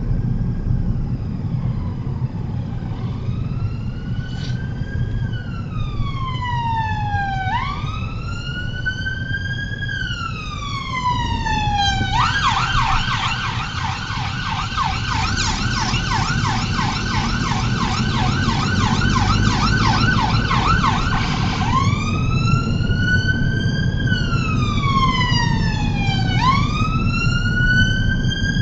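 Emergency vehicle siren sounding a slow rising-and-falling wail. About twelve seconds in it switches to a rapid yelp of about four sweeps a second, then returns to the wail some ten seconds later, over a steady low rumble.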